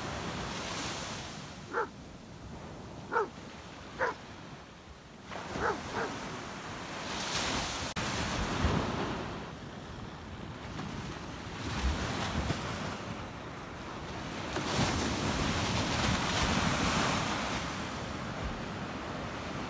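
A Hovawart dog barking at the breaking surf, five short barks in the first six seconds, then waves washing in onto a sandy beach in surges, with wind buffeting the microphone.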